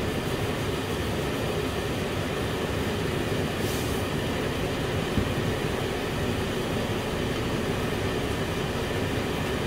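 Steady rumbling noise that holds even throughout, with no distinct knocks or changes.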